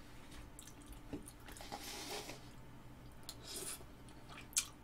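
Faint eating sounds: light clicks of a fork against the plate and soft mouth noises as a bite of spicy rice-cake tteokbokki is taken, with a sharper click near the end.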